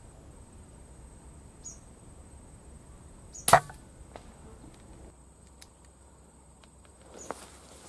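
A single shot from a moderated air rifle about three and a half seconds in: a sharp, muffled crack with a short tail. The pellet strikes the whistling duck it was aimed at.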